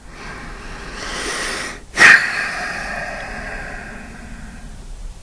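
A man drawing a long, noisy breath in, then letting it out in a sudden loud blast that tails off over about two and a half seconds.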